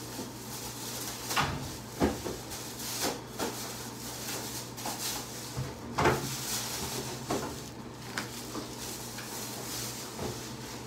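Scattered knocks and clunks of room furniture being handled, such as drawers and doors being pulled and bumped. They come irregularly, about eight in all, the loudest about two and six seconds in, over a steady low hum.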